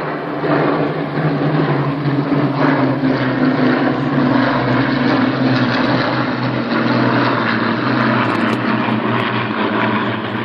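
A formation of propeller aircraft flying overhead, their engines making a steady, loud drone with a low hum running through it.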